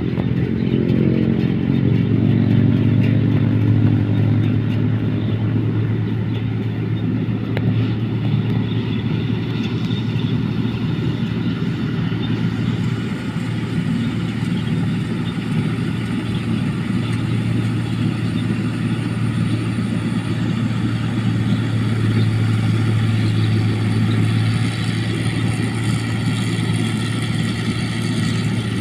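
Engine of a rice harvesting machine running steadily under load, a continuous drone with mechanical clatter, its pitch settling slightly lower in the first couple of seconds.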